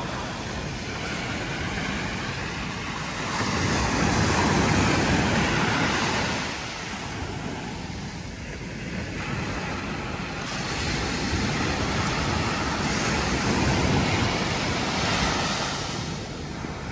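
Sea waves breaking and washing up a sandy beach, the surf swelling louder and easing off in turn as each wave comes in.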